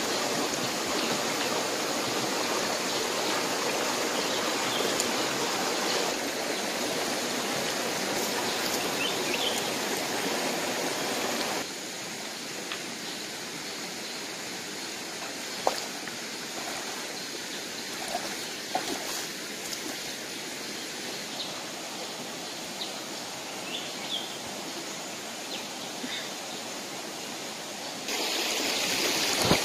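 Shallow rocky stream running steadily, a continuous wash of flowing water that drops a little in level about a third of the way in and rises again near the end. A few short knocks in the middle, as stones are shifted in the streambed.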